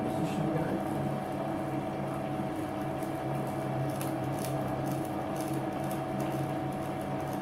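Metal lathe running with a steady hum while a scissor knurling tool's wheels roll under pressure on a hard steel bar, tracking into the existing knurl, with scattered light clicks partway through.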